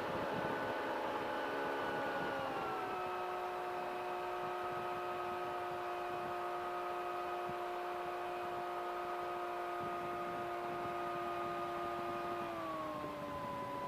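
CGS Hawk ultralight aircraft's engine and propeller droning steadily in flight. The engine speed drops twice, about two and a half seconds in and again near the end.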